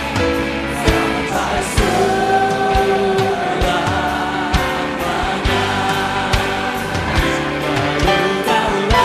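Choir of women's voices singing a worship song live with a band, with long held notes over a drum beat that strikes about once a second.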